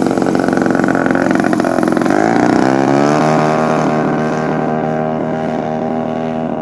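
DLE 55 single-cylinder two-stroke petrol engine on a large radio-controlled Tiger Moth biplane, run up to full throttle for the takeoff roll. The engine note rises about two seconds in, then holds steady and loud as the model lifts off.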